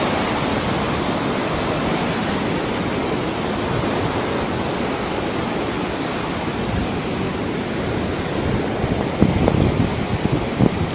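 Steady hiss of sea surf on the beach mixed with wind on the microphone, with a few gusty low thumps near the end.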